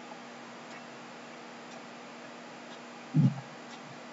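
Faint, clock-like ticking about once a second over a low hum, with a single dull low thump about three seconds in.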